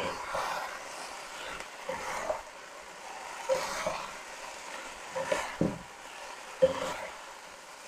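Spaghetti, chicken and vegetables being tossed in a hot nonstick wok with two plastic spatulas: a soft sizzle under scraping, with a few light knocks of the spatulas against the pan.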